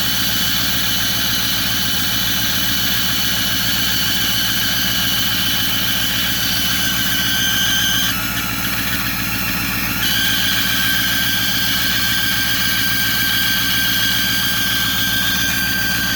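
Ford 6.4-litre diesel V8 idling with a steady high-pitched squealing whistle over it; the whistle drops out for about two seconds in the middle and then returns. The mechanic puts the noise down to bad exhaust manifold gaskets.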